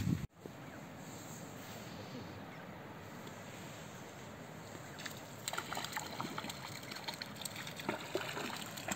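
A hooked fish thrashing at the water's surface: from about halfway through, a run of short, sharp splashes over a steady faint hiss of water.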